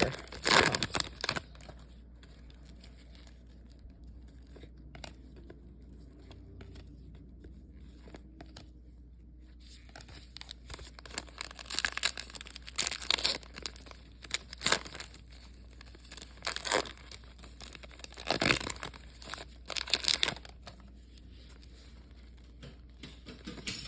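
Trading card pack wrappers crinkling and tearing open, in short bursts with quiet stretches between, as the packs are opened and handled.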